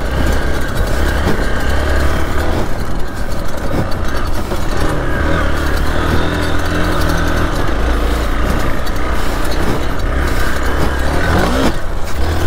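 Single-cylinder engine of a Hero XPulse 200 4V dirt motorcycle running under throttle on an off-road track, its pitch rising and falling as it is revved, with a rise near the end.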